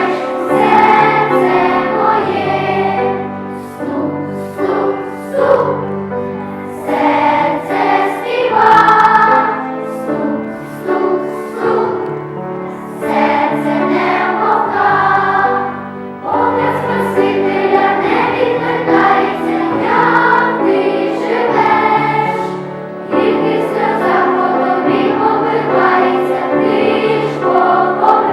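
A choir singing a song with musical accompaniment, in phrases with short breaks between them.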